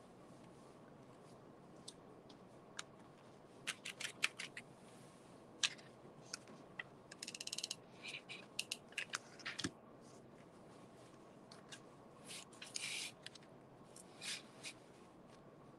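Faint, scattered clicks, taps and scrapes of hands at craft work: wooden coffee stir sticks being hot-glued and pushed into corrugated cardboard with a hot glue gun. A quick run of rattling ticks comes about seven seconds in, and a short rasp comes around thirteen seconds.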